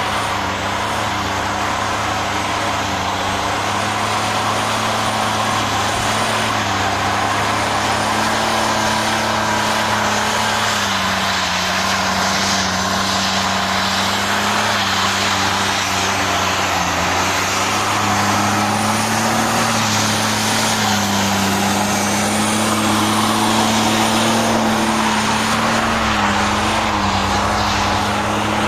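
Holden VP Commodore doing a burnout: the engine is held at high revs, wavering slightly, while the spinning rear tyres screech without a break.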